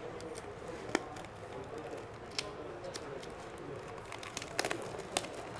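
Plastic shrink wrap on a cardboard box being picked at and peeled off by hand: a few sharp crackling clicks, one about a second in, another midway and a small cluster near the end, over steady room noise.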